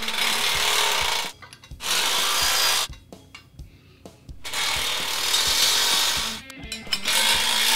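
Cordless impact driver run in four bursts of one to two seconds each, driving bolts and lock nuts tight on the lift's steel linkage.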